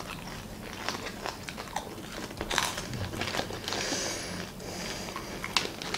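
Popcorn being chewed with close, crisp crunches. About four seconds in, a hand rustles through the popcorn in a plastic tub.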